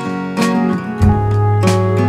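Background music led by strummed acoustic guitar, with a low bass note coming in about a second in.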